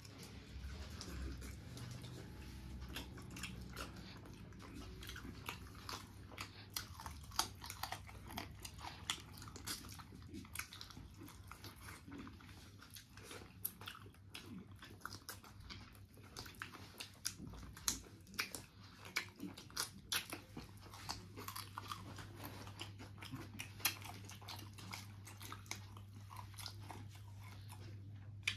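A person eating mutton curry close to the microphone: chewing and biting into mutton chop, with many irregular, close wet clicks of the mouth and teeth.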